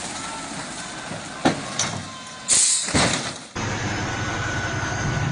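Heavy vehicle noise: a couple of sharp knocks and a short loud burst of hiss, then, after an abrupt change about three and a half seconds in, a steady low engine rumble.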